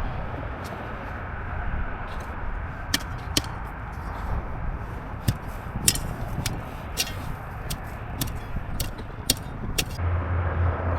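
Hand digging in hard ground: irregular sharp clicks and scrapes of a digging tool against packed dirt and stones, over outdoor background noise. A low steady hum comes in near the end.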